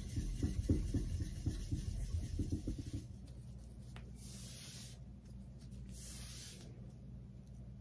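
Whetstone rubbed back and forth over the flat back of a drawknife blade, flattening and polishing it for sharpening. Quick scraping strokes for about three seconds, then softer rubbing with two brief hissing sweeps.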